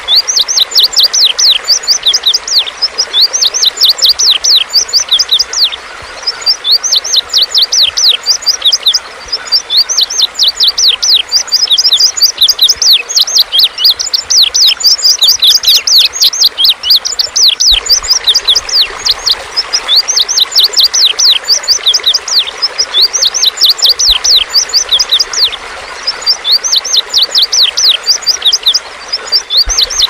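Indigo bunting song: fast runs of high, downward-sliding chirps in phrases of about two seconds, repeated again and again with short breaks, over a steady hiss.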